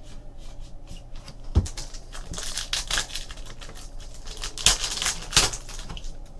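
Trading cards handled and slid against each other with scattered clicks, then a foil-wrapped trading-card pack torn open with crackling rips, loudest about five seconds in.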